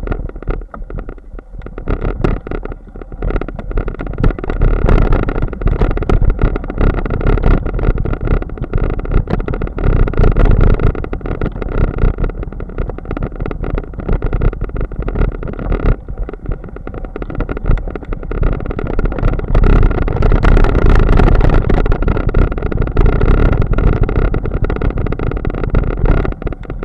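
Bicycle riding over a rough grassy trail: a constant rumble of wind and jolting on the bike-mounted camera, full of rapid knocks and rattles from the bumps.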